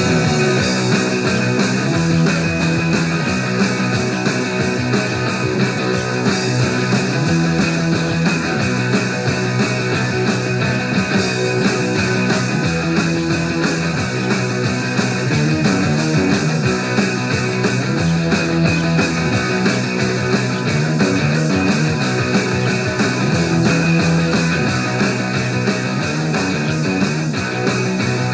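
Loud rock music with guitar over a bass line that moves through repeating note patterns.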